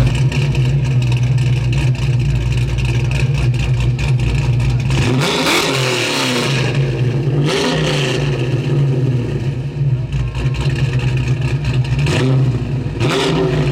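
1980 Chevrolet Camaro's crate engine idling steadily and revved up and back down a few times, around the middle and again near the end.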